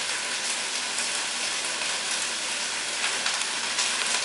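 Thin chicken breasts frying in a skillet: a steady sizzle with fine crackling.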